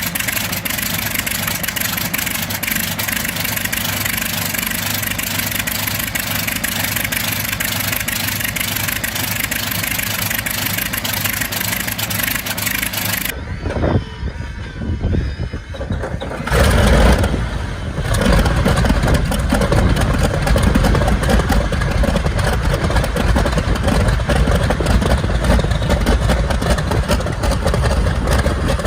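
Old propeller aircraft piston engines. The first runs steadily with a rapid firing pulse. About thirteen seconds in, the sound cuts to a quieter stretch, and a few seconds later a second engine catches with a sudden loud burst and keeps running heavily.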